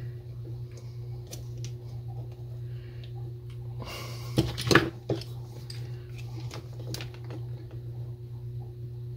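Small clicks and light scrapes of plastic and metal parts as a Zebco One Classic spincast reel is handled and its bait clicker and retaining pin are fitted. A louder cluster of clicks and rattling comes about four and a half seconds in. A steady low hum runs underneath.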